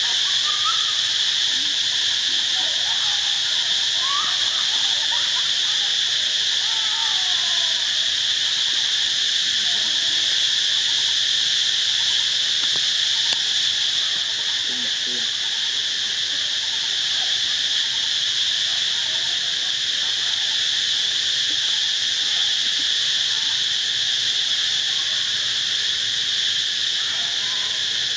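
Steady, high-pitched drone of an insect chorus, with a few faint short gliding calls over it in the first several seconds and again near the end.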